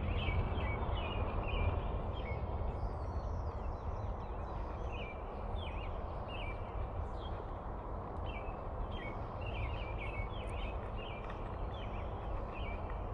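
Birds chirping in short calls repeated many times over a steady low background rumble.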